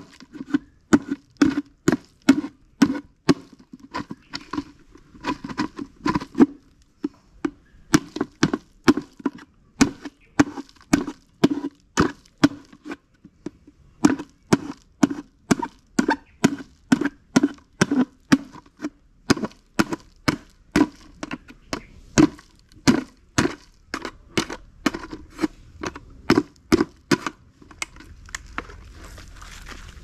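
Terracotta clay pot being tapped over and over at its upturned base with a hand-held tool, about two to three sharp knocks a second, each with a short ring from the pot. The knocking stops near the end.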